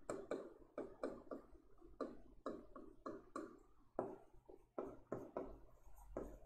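Writing by hand on a board: short, irregular scratching strokes of the pen, a few a second.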